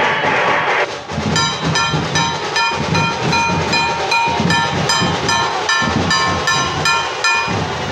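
Loud music over a sound system: about a second in, a muffled song gives way to a horn-like note repeated rapidly and evenly, about three times a second, over a heavy low beat.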